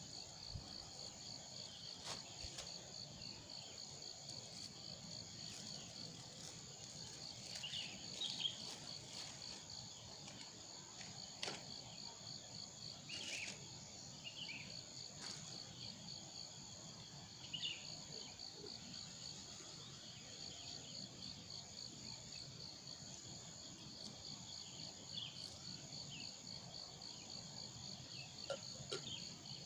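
Insects, likely crickets, trilling steadily in a continuous high pulsing chorus, with a few short high chirps scattered through it.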